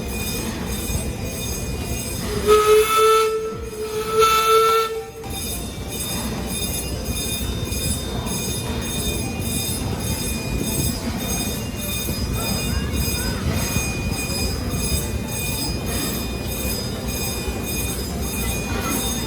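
Train whistle blowing two blasts, each about a second long, followed by the steady rumble and clatter of the train running.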